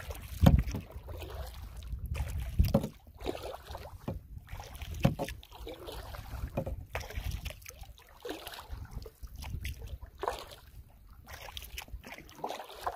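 Canoe paddling on a lake: a paddle splash or knock on the hull about every two seconds, with water noise between strokes. Wind rumbles on the microphone through the first two-thirds.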